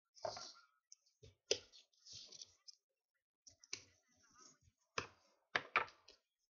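Paper envelope being handled and folded by hand: short rustles and crinkles of paper broken by several sharp clicks and taps as the folds are pressed, with brief pauses between.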